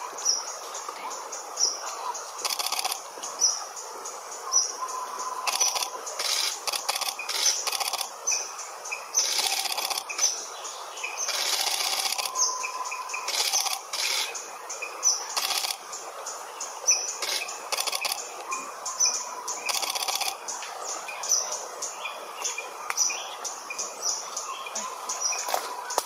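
Forest ambience of bird calls: a high, thin chirp repeated a little more than once a second, with scattered short hissing bursts and a few faint whistled notes lower down.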